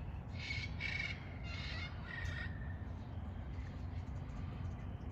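Peafowl contact calls: four short, pitched calls in quick succession during the first two and a half seconds, over a steady low background rumble.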